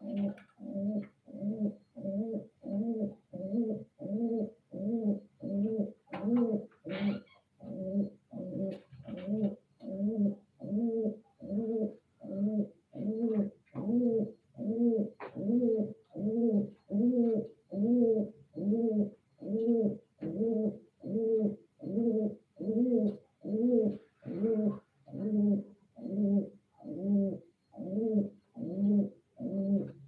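Domestic pigeons cooing: a steady, evenly paced run of short low coos, about one and a half a second.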